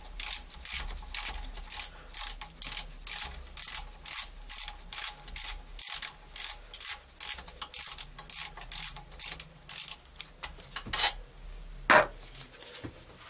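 Ratchet wrench clicking in quick, even strokes, about two to three a second, as it backs out the Torx bolts of a Mercedes 722.6 automatic transmission's valve body. The clicking stops about ten seconds in, followed by a few separate metal knocks, the loudest about two seconds later.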